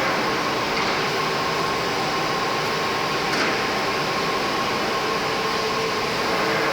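IMEAS LCSI 190 two-head wide-belt panel sanding machine running steadily: a constant mechanical rushing noise with a faint steady hum tone through it.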